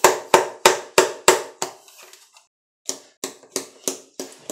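A can of Skoal Wintergreen dip being packed with snaps of the wrist: a run of sharp taps on the lid, about three a second. The taps stop about a second and a half in and start again near three seconds in.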